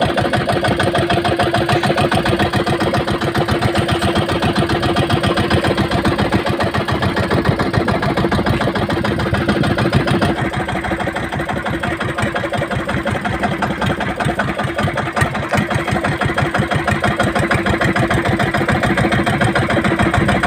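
Small engine of a motorized outrigger boat (bangka) running steadily, a fast, even putter heard up close from on board.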